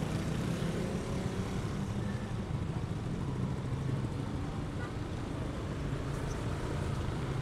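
Motorcycle engine running steadily at low speed in slow-moving road traffic, a low even hum with the surrounding traffic noise.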